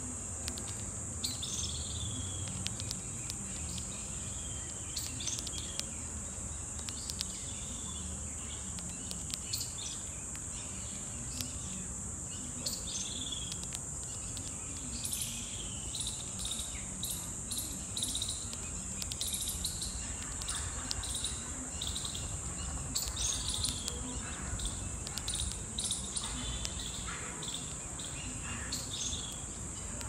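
Steady high-pitched insect drone, with birds giving short chirps every second or two, busier in the second half.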